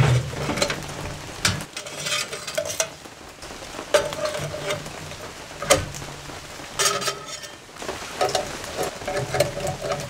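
Stainless-steel parts of a mini wood-burning stove being handled and fitted together: the chimney pipe and pot stand clinking and scraping against the stove body. There are several sharp metallic knocks, some with a brief ringing.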